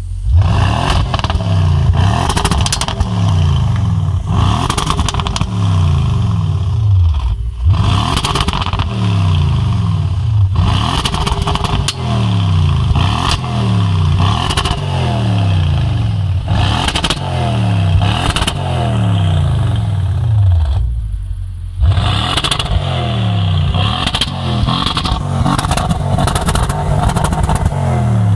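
Audi S6 C7's twin-turbo 4.0 TFSI V8 through an MG Motorsport exhaust, revved over and over. Each rev climbs quickly and falls back, about one a second, with sharp cracks between revs. It drops back briefly twice, about a third of the way in and again near the three-quarter mark.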